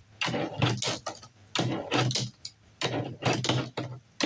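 Tech Deck fingerboard rolling across a tabletop, its wheels rumbling and the deck clacking and clattering as tricks are flicked, in three short bursts.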